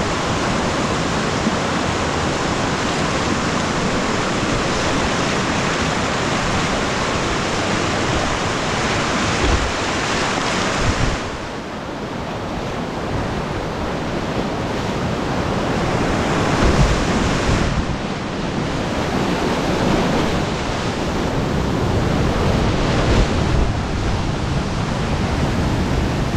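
Loud, steady rush of whitewater around a kayak running a creek rapid, with wind buffeting the microphone and a few low thumps.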